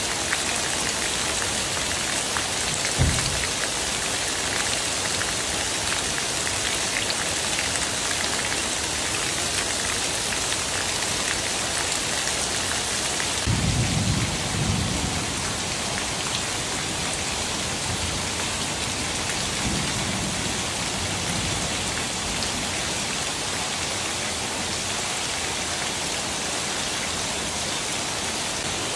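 Heavy rain pouring steadily, with roof runoff splashing onto concrete and then rain falling on leaves. A short low thump comes about three seconds in, and a low rumble comes around the middle.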